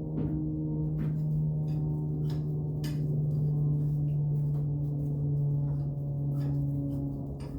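A steady low hum holding one pitch, with a few faint light ticks over it.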